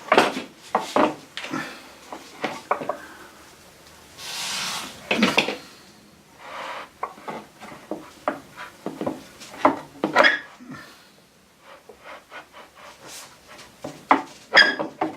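A wooden board being handled and shifted about: scattered knocks and clacks of wood, with a longer scraping rub about four seconds in.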